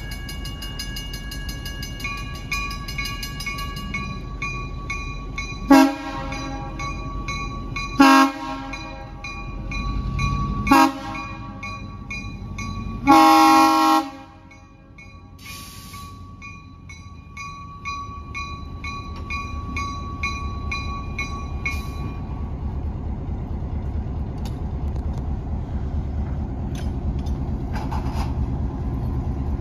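EMD SW8m switcher locomotive sounding its horn four times as it nears a grade crossing, the last blast the longest, in the crossing-warning pattern. A crossing bell rings steadily underneath until a few seconds past the last blast, and the locomotive's diesel engine rumbles louder as it approaches.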